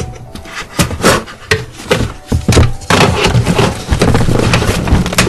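Hands handling a taped cardboard shipping box close to the microphone: a series of knocks and thumps on the cardboard, then from about three seconds in a stretch of continuous rubbing and scraping over the box.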